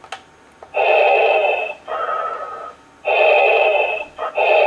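Darth Vader voice-changer toy playing its electronic breathing effect. About four hissing breaths of roughly a second each, in and out by turns, with a steady whistling tone in each, starting shortly after a brief pause.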